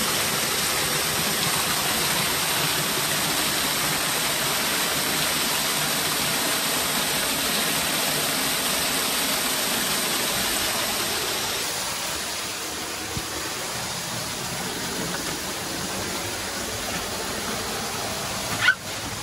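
A small waterfall pouring over a mossy rock face and splashing into a pool: a steady rushing hiss that eases a little about twelve seconds in. A single sharp click near the end.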